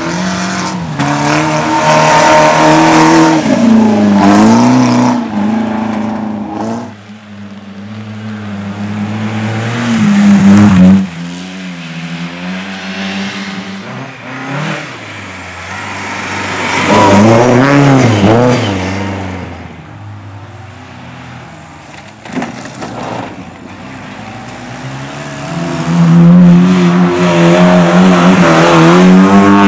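Rally cars driven hard past one after another, engines revving up and dropping back with gear changes, several loud passes separated by quieter stretches.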